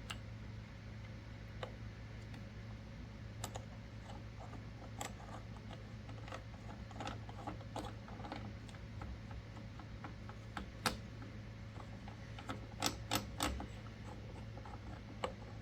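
Scattered light metallic clicks and clinks of the priming rod, its lock nut and tools being handled on a Frankford Arsenal X-10 progressive reloading press, with a quick run of several clicks about three quarters of the way in. A steady low hum sits underneath.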